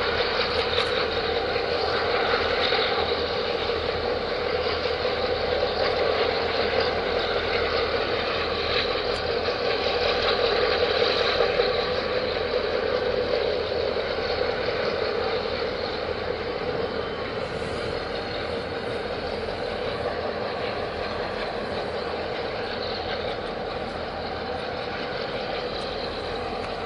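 A large container ship's machinery droning steadily as the ship passes close by, with a steady mid-pitched hum through it. It eases off slightly in the second half.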